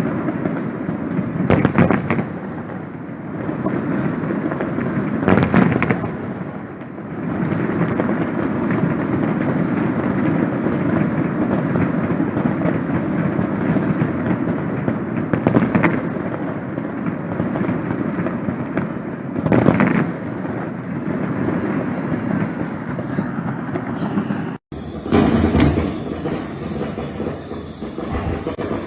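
A fireworks salute going off: a dense, continuous crackle with louder bangs every few seconds.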